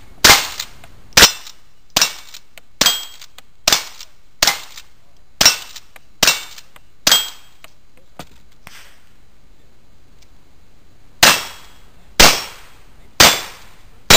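A rifle fired nine times in steady succession, just under a second apart. After a pause of about four seconds, a revolver is fired four times about a second apart.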